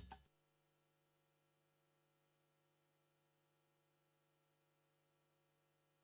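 Near silence with a faint steady hum, after the last of the music cuts off just after the start.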